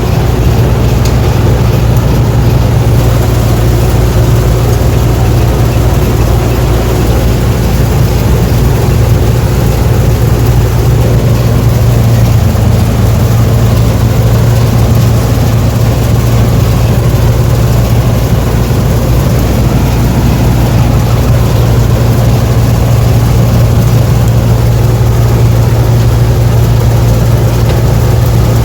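Combine harvester running close by, a loud, steady engine drone with no change in speed.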